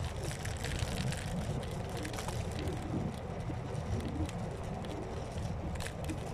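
Electric scooter riding along a forest path: a steady low rumble of the tyres rolling, with scattered clicks and rattles from the ground and the scooter.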